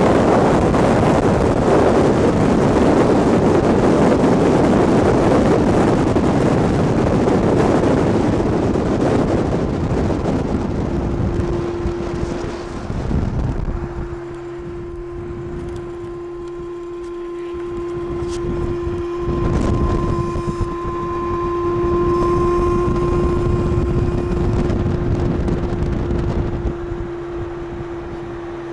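Wind rushing over the microphone and road noise from a moving vehicle, loudest in the first ten seconds. About eleven seconds in, the rushing drops and a steady hum comes in and holds.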